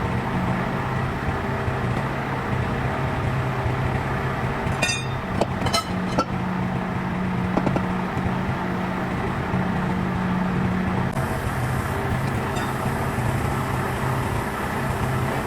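An engine idling steadily, with a few sharp metallic clicks about five to six seconds in.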